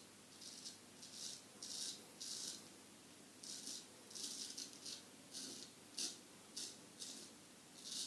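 A 6/8 Solingen straight razor scraping through stubble and shave-cream lather in about a dozen short, crackly strokes at uneven intervals.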